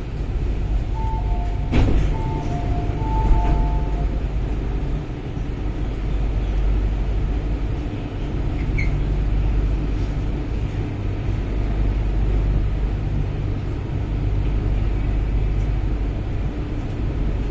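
Inside an MTR Island Line Q-Train carriage: a low, steady train rumble. About a second in, a run of short two-tone beeps alternates between a higher and a lower note for about three seconds, the pattern of the train's door-closing warning. A sharp knock sounds during the beeps.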